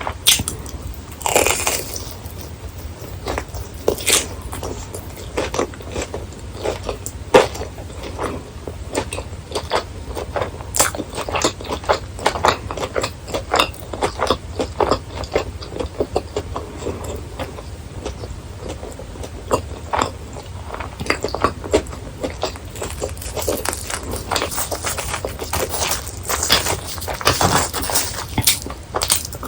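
Close-miked biting and chewing of crispy deep-fried snacks: a dense, irregular run of crunches and crackles, with louder bites about a second in and again near the end.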